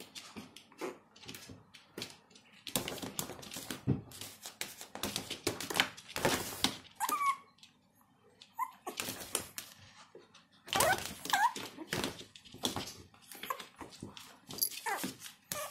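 Two Maltese puppies play-fighting, with repeated scuffling on the floor and a few short high whimpers.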